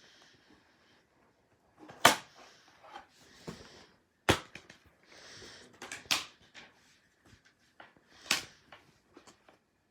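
Plastic Blu-ray case being handled and opened: four loud, sharp clicks and snaps about two seconds apart, with lighter clicks and rustling between them.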